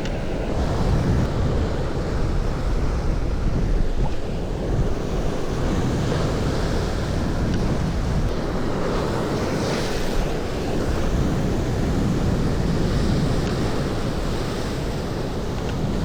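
Sea waves breaking and washing against the shore, with wind rumbling on the microphone.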